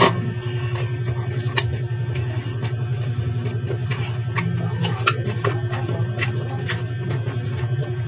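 Eating sounds: chopsticks clicking and tapping against a paper cup, with chewing, in short irregular clicks, the sharpest right at the start. Under them runs a steady low mechanical hum, the loudest thing throughout.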